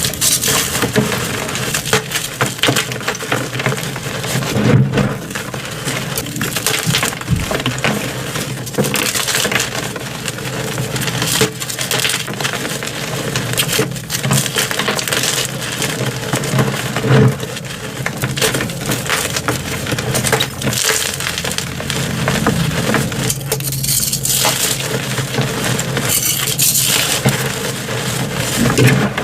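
Coloured gym chalk blocks, re-pressed reforms, being crushed: a dense, continuous crunching and crackling.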